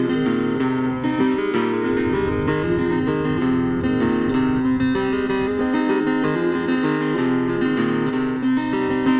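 Solo acoustic guitar playing an instrumental break in a folk song, a steady run of picked notes with no singing.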